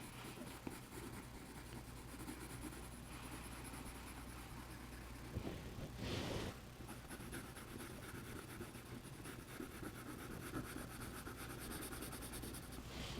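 Faint scratching of a colored pencil shading on drawing paper, with a brief louder scratch about six seconds in.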